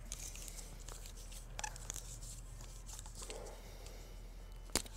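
Teflon thread-seal tape being wrapped around the threads of a PVC fitting: faint crinkly rustling with small clicks of the plastic fitting in the hands, and one sharp click near the end, over a steady low hum.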